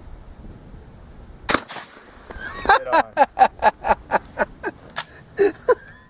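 A single 12-gauge shotgun shot about a second and a half in. From under three seconds in comes a rapid run of short, loud bursts, about four a second, louder than the shot, which stops abruptly at the end.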